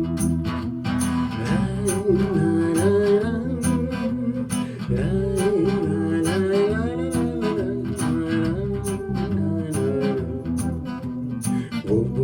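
Live band playing an instrumental passage: plucked guitars and bass over a steady percussion beat, with a wavering melodic lead line on top.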